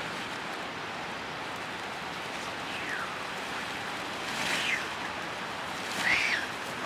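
Leafy fodder branches rustling as they are gathered into a pile, over a steady rushing noise. A few short chirps come about three, four and a half and six seconds in.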